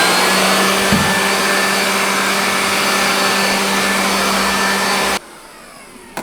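Electric blower motor running steadily at full speed with a rushing air noise, switched off about five seconds in and then winding down, used to clear sanding dust out of a garage.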